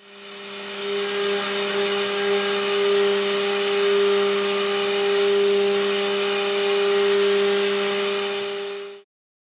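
Milling machine copy-milling a metal mould cavity with a torus end mill: a steady cutting tone with two held pitches over a hiss, fading in at the start and cutting off abruptly near the end.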